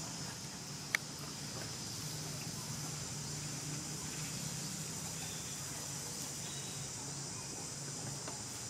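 Steady high-pitched insect chorus over a low steady hum, with one sharp click about a second in.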